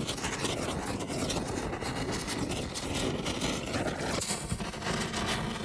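Steady rumbling, crackling noise of an intro sound effect, changing in character about four seconds in.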